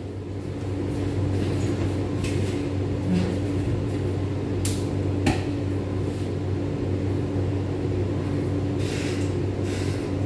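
Steady low electrical hum from a running kitchen appliance, with scattered clicks, knocks and a few short rustling bursts from off-camera handling.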